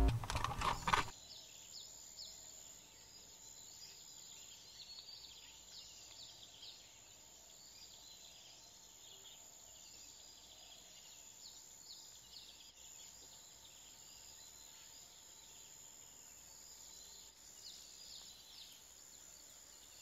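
Music cuts off about a second in, leaving faint outdoor ambience: a thin, steady high whine with many small, high chirps and ticks scattered throughout.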